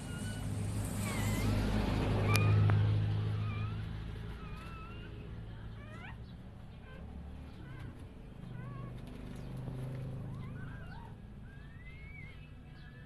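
Dog whimpering in labour: short, high-pitched, wavering whines and squeaks, repeated irregularly, over a low rumble that is loudest a few seconds in.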